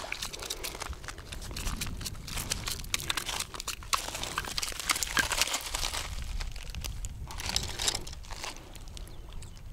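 Footsteps in sandals crunching over a loose gravel and stone shore, with stones clicking and shifting underfoot in an uneven run of crunches.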